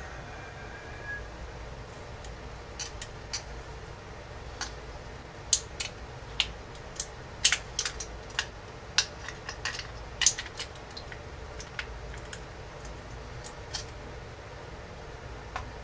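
Irregular sharp metallic clicks and clinks from handling the metal parts of an antique Beaumont Adams percussion revolver, most of them bunched together in the middle, over a faint steady hum.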